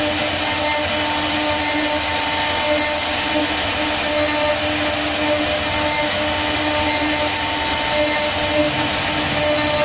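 A CNC router's GDF53 high-speed spindle carving a relief into a wooden panel: a steady high whine over the noise of the bit cutting wood, with a few lower tones that come and go.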